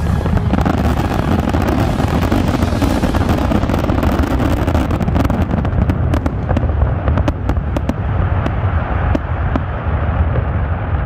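Dense fireworks barrage: a continuous rumble of many overlapping shell bursts, with a run of sharp, separate cracks from about halfway through.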